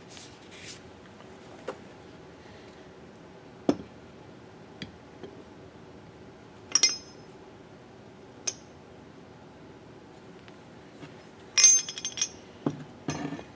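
Scattered metallic clinks and knocks as the electric motor's front end bell is handled and fitted over the rotor shaft onto the front bearing. A louder cluster of ringing clinks comes near the end.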